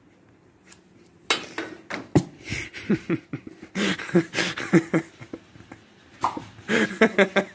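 People laughing hard in quick repeated bursts, starting about a second in, with a few sharp clicks among them.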